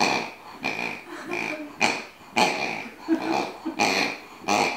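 A pink rubber squeaky dog toy squeaked over and over by an Irish Soft Coated Wheaten Terrier chewing on it, short squeaks at an uneven pace of about two a second, all at the same pitch.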